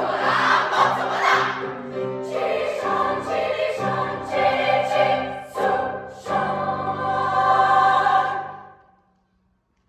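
Choir singing, moving through a few held chords and ending on a long final chord that dies away about nine seconds in.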